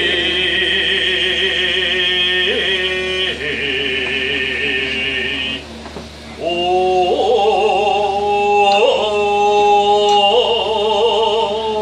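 Kiyari uta, the traditional Japanese work and festival chant, sung in long drawn-out notes with a wavering melismatic line. It breaks off briefly about six seconds in, then a new phrase starts, swinging up in pitch.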